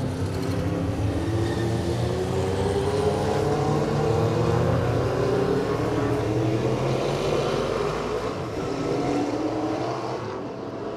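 Race car engines running hard as several cars pass, the engine note climbing again and again as they accelerate, then fading away near the end.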